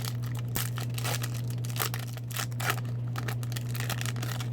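The wrapper of a hockey card pack being torn open and crinkled by hand, an irregular run of crackles and rips.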